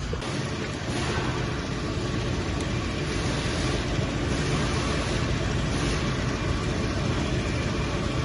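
Steady, fairly loud noise with a low hum underneath, cutting off suddenly at the very end.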